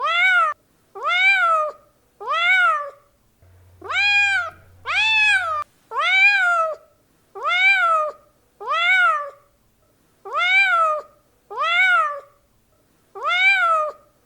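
A domestic cat meowing over and over, about eleven meows of roughly half a second each, one every second or so, each rising and then falling in pitch.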